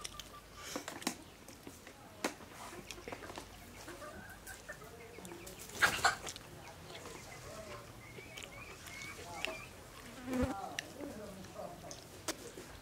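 Chickens clucking close by, over the soft chewing and sharp mouth smacks of someone eating by hand, with one louder smack about halfway through.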